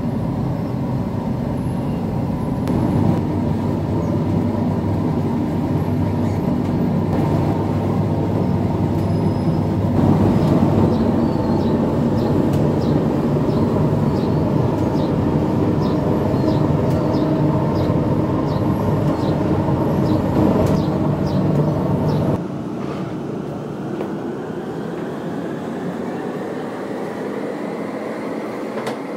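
Bakery machinery running: a conveyor bread oven gives a steady mechanical noise, with a regular light clicking through the middle. Near the end the noise drops suddenly to a quieter hum with a slowly rising whine.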